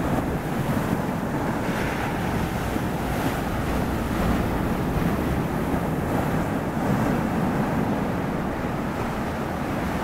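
Sea waves breaking and washing over shoreline rocks: a steady rushing surf with no pauses, over a low rumble of wind buffeting the microphone.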